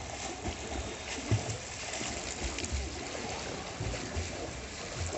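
Pool water splashing and churning as swimmers kick, with a few dull low thumps, the strongest about a second and a half in.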